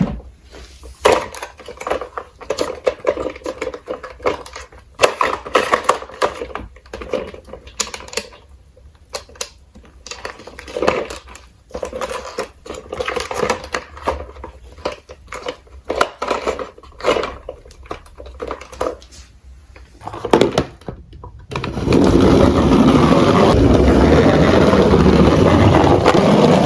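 Small diecast toy cars rattling and clicking in irregular bursts as they roll and clatter down a slope. About 22 seconds in, a much louder steady rumbling noise takes over.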